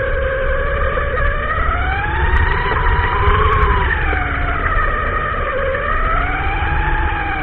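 Electric motor and gearbox whine of a WLtoys A979 RC truck, heard from its onboard camera, rising and falling in pitch with the throttle: it climbs to a peak about three seconds in, drops, then climbs again near the end, over a steady low rumble.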